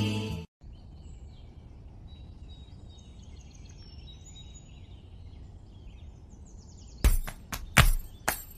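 Music cuts off just after the start, leaving a faint low hum with small birds chirping faintly and intermittently. About seven seconds in, sharp percussive beats begin, the opening of the next song.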